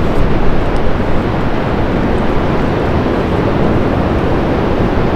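Wind buffeting the camera microphone on an exposed sea cliff, a loud steady rush heaviest in the lows, with the ocean surf below mixed in.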